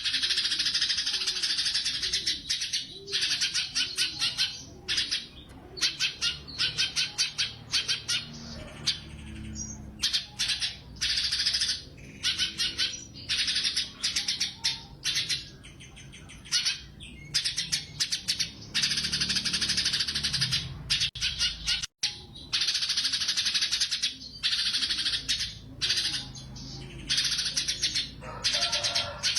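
A cucak cungkok songbird singing persistently, in dense, high-pitched bursts of rapid notes that come one after another with short breaks between them.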